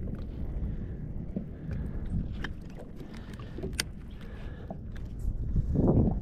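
Water moving against a kayak hull with wind on the microphone, a few sharp clicks scattered through, and a louder rush of noise near the end.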